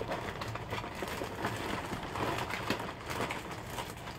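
Thin plastic wrapping of a blind-bag toy crinkling in hands as it is handled and opened: a steady stream of small irregular crackles.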